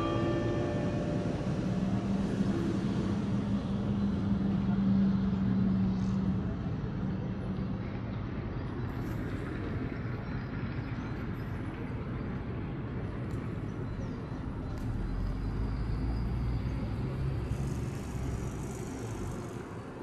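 Road traffic running past, a steady rumble with a heavier vehicle's low rumble swelling up and fading near the end. The last notes of the carillon's bells die away right at the start.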